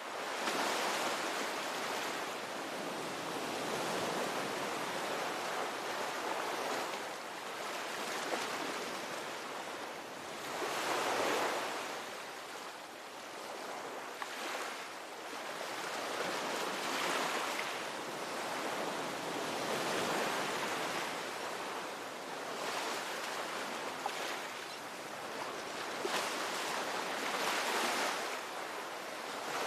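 Ocean waves breaking and washing ashore: a steady surf rush that swells and fades every few seconds as each wave comes in.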